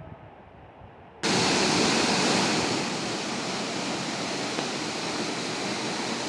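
Waterfall rushing: a fainter stretch of water noise, then the full, loud, steady rush of falling water cuts in suddenly about a second in.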